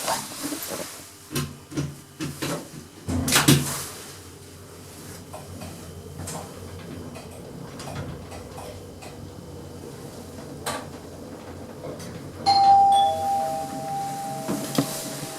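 Passenger lift in use: a few clicks and a knock in the first few seconds, then a steady low hum as the car travels, then an electronic arrival chime about twelve seconds in, a higher tone followed by a lower one, held for a couple of seconds.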